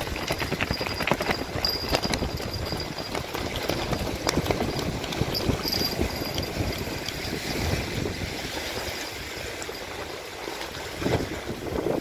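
Strong gusty wind buffeting the microphone, over choppy lake water with waves washing onto the shore.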